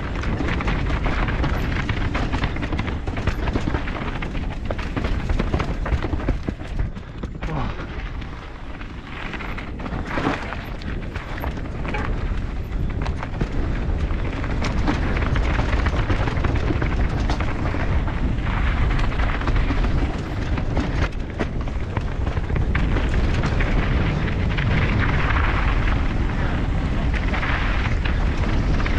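Wind buffeting a helmet-mounted camera's microphone while a full-suspension mountain bike runs down a rough dirt trail at speed, its tyres rumbling over the ground with frequent rattling knocks over rocks and roots. The noise eases for a few seconds about eight seconds in, then picks up again.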